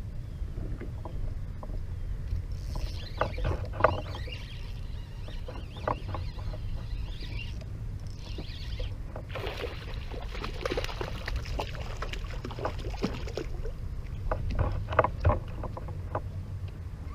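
Sounds of fishing from a kayak: splashing water with scattered knocks and clicks against the hull, over a steady low rumble of wind on the microphone.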